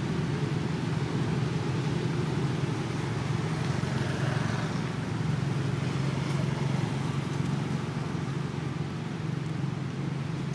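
A steady low mechanical hum with a faint hiss over it.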